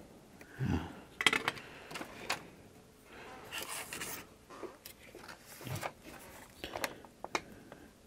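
Small clicks, taps and scraping of tools and parts being handled during fine soldering work, with a couple of dull bumps and a short hiss about halfway through.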